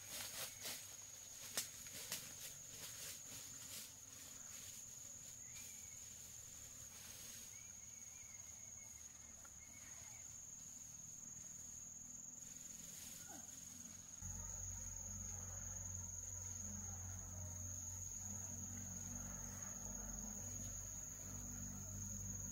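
Insects trilling in one steady, high, unbroken tone, with light rustling and clicks in the first few seconds. About two-thirds of the way through a low steady rumble comes in under it.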